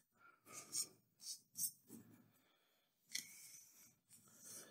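Faint rustling of Pokémon trading cards being slid and gathered by hand on a playmat: a run of short, soft brushing swishes in the first two seconds, then a longer swish a little after three seconds.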